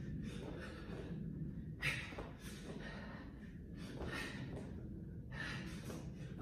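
A woman breathing hard from exertion: quick, heavy breaths and gasps, about one or two a second.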